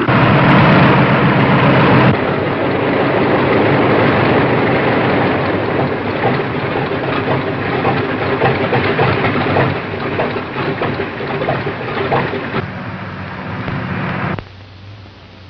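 Biplane engine and propeller running at high power, a loud, dense, steady noise. It drops away suddenly near the end, leaving a quieter low hum.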